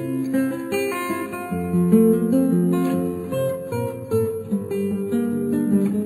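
Instrumental background music: a guitar playing a continuous run of plucked notes.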